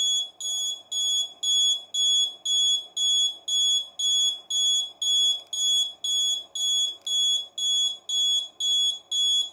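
Piezo buzzer of an Arduino alarm clock sounding its alarm: a high-pitched beep repeated evenly about two and a half times a second. The set alarm time has been reached, and the alarm keeps beeping for up to a minute.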